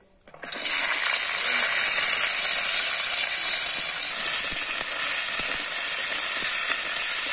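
Cut flat beans, potatoes and carrots dropped into hot mustard oil in a kadai, setting off a loud, steady frying sizzle that starts suddenly about half a second in.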